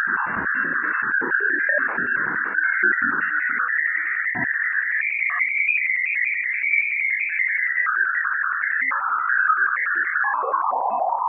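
Radio emissions recorded by NASA's Juno spacecraft Waves instrument near Jupiter's moon Ganymede, shifted into the audio range. They sound as a wavering, synthesizer-like electronic tone that rises in pitch around the middle and falls lower near the end.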